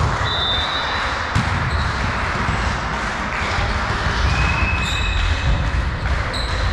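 Volleyball rally: one sharp hit of the ball about a second and a half in, short high squeaks of court shoes on the sports-hall floor, over a steady background hum of the hall.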